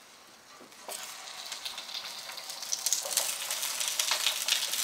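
Raw chicken pieces going into hot oil in an enamel pan, sizzling and crackling. The sizzle starts about a second in and gets louder as more pieces are added.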